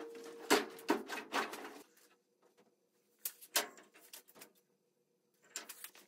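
Rear suspension of a VW Baja Bug (trailing arm and FOA coilover shock) being forced down toward full droop by hand: a short creaking tone in the first second, then metal knocks and rattles in three bursts as the parts shift.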